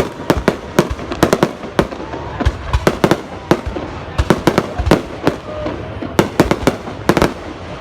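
Fireworks exploding in a rapid, irregular barrage of sharp bangs, several a second, over a steady crackle.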